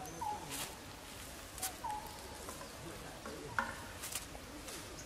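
Short chirping animal calls, about three in all roughly a second and a half apart, each a quick drop in pitch, with a few faint clicks between them.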